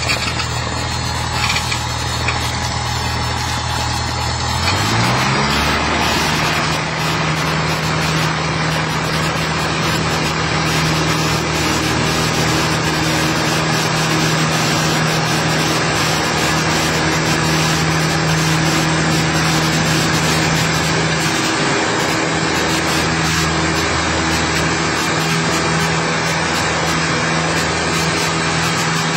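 Cessna 172's engine and propeller, heard from the cockpit. About five seconds in it rises in pitch as the throttle goes to full power for the takeoff roll, then runs at a steady high pitch through to lift-off.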